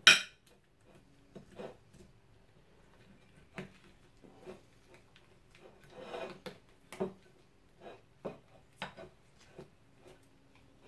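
A metal fork scraping and tapping on a ceramic plate while cooked rabbit meat is pulled off the bone: scattered clicks and scrapes. The loudest is a sharp clack right at the start, with a rougher stretch of scraping about six seconds in.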